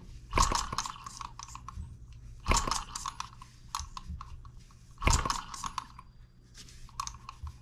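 Miniature M17B four-stroke model engine turned over by hand at the flywheel in a cold first-start attempt, giving three short bursts of rattling clatter about two and a half seconds apart, with lighter ticking between them.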